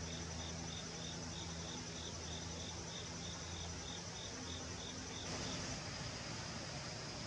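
Insects chirping in a steady rhythm, about four high chirps a second over a continuous higher trill, with a low hum beneath. The chirps and the hum stop about five seconds in, leaving the trill.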